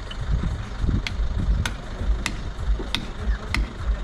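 Hammer strikes at an even pace, a sharp knock about every half second or so, over a steady low rumble.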